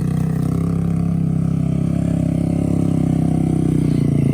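Four-wheeler engine running at a steady speed, with an even low pulse and a little clatter.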